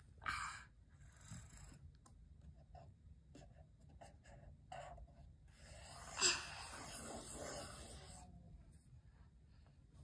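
Felt-tip sketch pen scratching across paper in a toddler's scribbling, loudest in a stretch of about two seconds past the middle, with scattered light clicks and taps of pens being picked up and put down.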